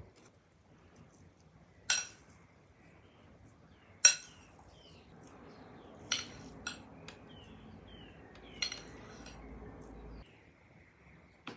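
Metal kitchen utensil clinking sharply about five times, the loudest about four seconds in, while curd cheese is scooped and spread on dough. Faint bird chirps in the background.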